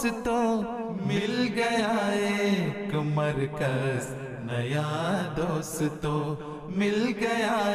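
A man's voice singing an Urdu nazm, a devotional poem in praise of a mosque, in long wavering, ornamented melodic lines.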